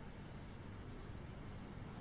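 Quiet room tone: a faint, steady low hum under a light hiss, with no distinct sounds.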